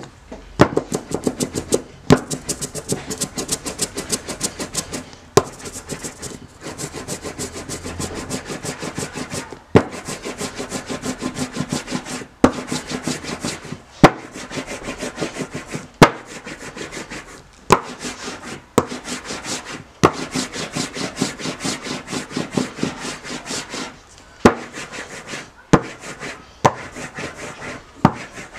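Hand roller (brayer) rolling printing ink out across a wooden tabletop, back and forth: a continuous rubbing with a rapid fine crackle. Sharp knocks come every second or few seconds.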